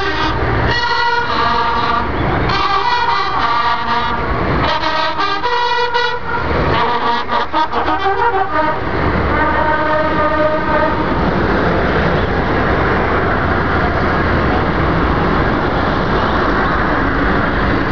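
Horns honking in a series of blasts of about a second each through the first half, over the steady engine and road noise of military parade vehicles passing. After about eleven seconds only the engine noise goes on.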